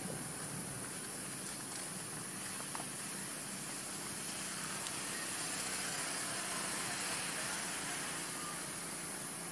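Steady outdoor background noise: an even hiss with a constant high-pitched drone, and a couple of faint short chirps.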